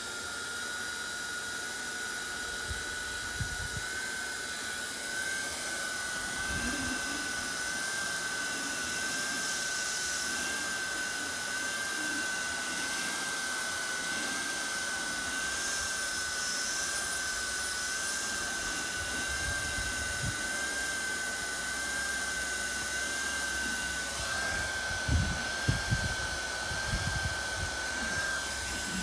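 Hand-held hot-air plastic welder running steadily, its blower motor giving a high, slightly wavering whine over the rush of hot air as it heats a PVC fitting. A few low knocks near the end.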